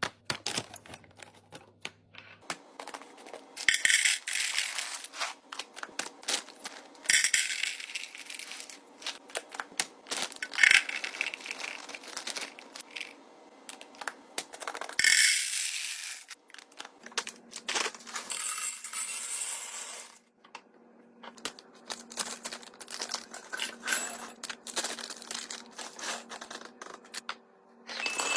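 Small hard objects such as beads being poured and clattering into containers, with many sharp clicks of handling and several rushes of pouring lasting a second or two each.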